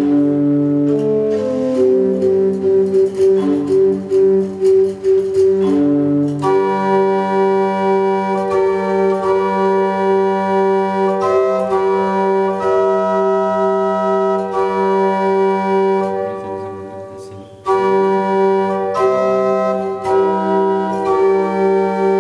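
Organ music: a quick figure of repeated notes for the first six seconds, then sustained chords. It fades down shortly after the middle and comes back in abruptly.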